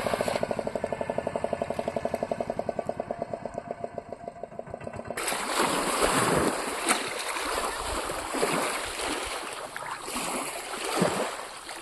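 A boat's engine running with a steady rapid beat that fades over the first few seconds. About five seconds in it gives way abruptly to loud rushing, splashing water.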